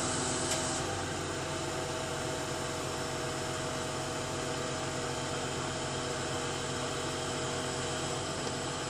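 Truck-mounted knuckle-boom crane running under load as it lifts an assembled lift shaft: its engine and hydraulics give a steady drone with several held tones. A higher hiss drops away about a second in.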